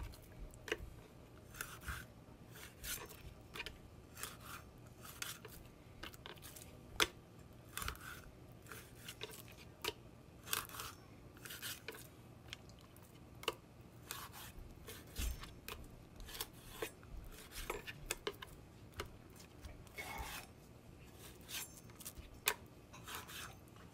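Chef's knife scoring whole crappie on a wooden cutting board: irregular short scrapes and clicks as the blade cuts through the scaly skin and taps the board, while the fish are handled and shifted on the board.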